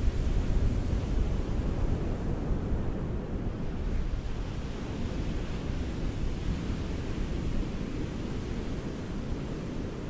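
Ocean surf: a continuous low wash of waves on a shore, a little louder in the first couple of seconds and then easing off.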